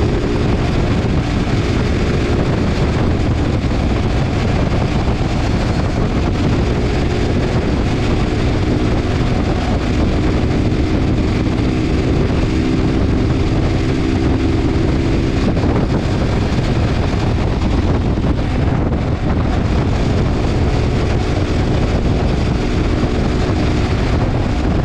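Motorcycle riding at a steady cruising speed, with wind rushing over the microphone. The steady engine note fades in and out under the wind.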